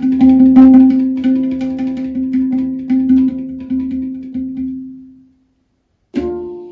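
Handpan struck rapidly by hand, its notes ringing on one strong low pitch and dying away about five seconds in. After a short silence, one more note is struck near the end and rings out.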